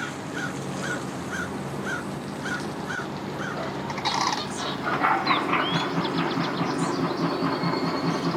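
Birds calling over the steady low hum of an idling engine: short notes repeated about twice a second at first, then a burst of higher sweeping calls from about halfway through.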